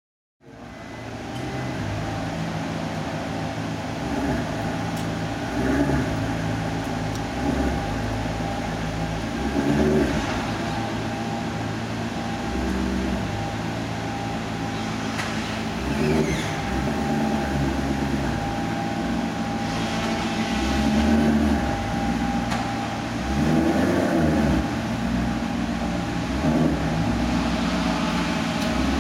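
Maserati GranTurismo S's 4.7-litre V8 idling at a standstill, its note shifting now and then with small swells in loudness.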